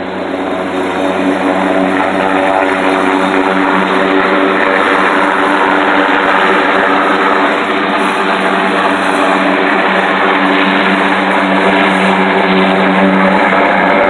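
Single-rotor helicopter flying overhead under load, an air-conditioning unit slung beneath it on a long line: a steady rotor and engine drone that grows louder over the first couple of seconds, then holds.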